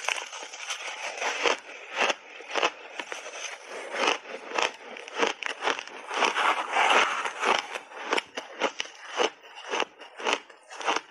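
Close-miked biting and chewing of refrozen shaved ice: a rapid series of sharp, crackly crunches. There is a denser grinding stretch around the middle, when a metal spoon scoops more ice from the plastic tub.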